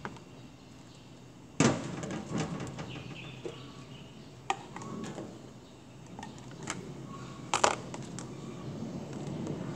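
Kitchen handling noises: a sharp knock about a second and a half in, then scattered clicks and taps as a bowl, cutting board and utensils are handled on a stainless-steel counter.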